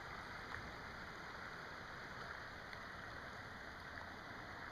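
Small shallow forest creek flowing, a steady babble of running water with a few faint ticks.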